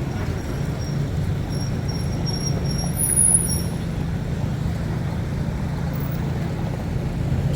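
Steady city street traffic rumble from passing cars, buses and trucks, with a faint high squeal coming and going about two seconds in.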